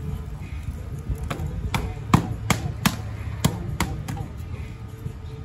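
Boxing gloves smacking into focus mitts: a quick run of about seven punches starting a little over a second in, the loudest about two seconds in, over a low steady rumble.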